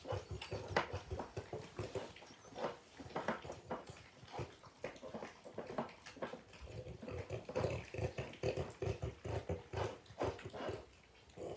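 Two French Bulldogs eating and licking peanut butter from small bowls: a quick, irregular run of small licking and chewing clicks.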